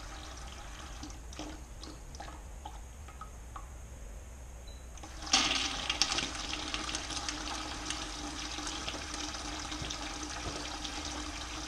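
Water trickling faintly, then about five seconds in the flow is turned up and water rushes steadily through the clear tubes of a homemade transmission-cooler model and splashes out into a plastic bucket.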